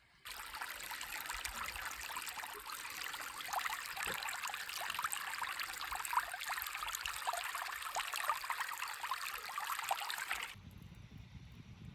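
Small creek water trickling and babbling steadily, full of fine splashes. About ten seconds in it cuts off abruptly to a quieter, low rumbling noise.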